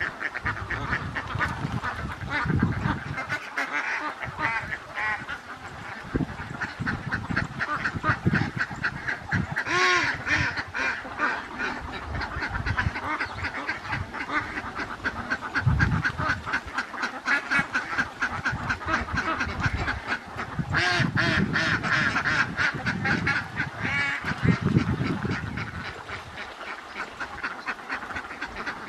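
A large flock of domestic ducks quacking continuously, many calls overlapping into a constant chatter, with louder stretches about a third of the way in and again after two-thirds.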